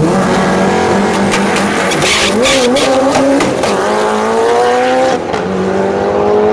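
A 2002 Subaru WRX drag car's turbocharged engine launching at full throttle down the quarter mile. Its pitch climbs and drops back at each upshift, twice. A string of sharp cracks comes in the first few seconds.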